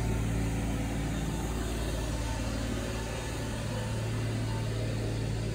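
Steady low mechanical hum running evenly, with no strokes or changes.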